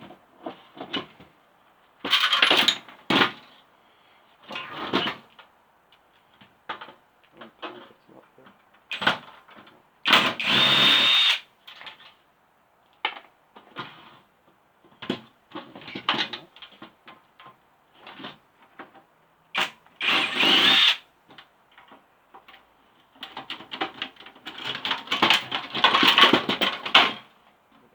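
Cordless brushless impact driver running in short bursts of a second or two with a high whine, between knocks and clatter of metal and plastic parts being worked loose.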